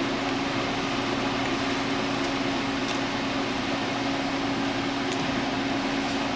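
Steady hum and even hiss of a running fan, with a few faint ticks.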